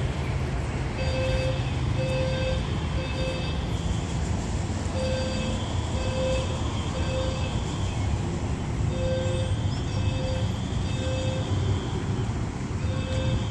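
Building fire alarm sounding the temporal-three evacuation pattern: three short beeps, a pause, and again, about every four seconds, over a steady low rumble.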